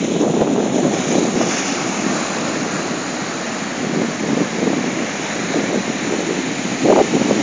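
Sea surf breaking and washing up a sandy beach, mixed with wind buffeting the microphone. The sound swells louder near the end.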